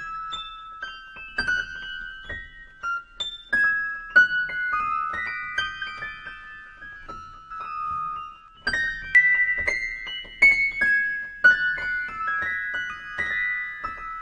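Background music: a slow melody of single high notes struck on a keyboard, each note fading away, with a short lull a little past the middle.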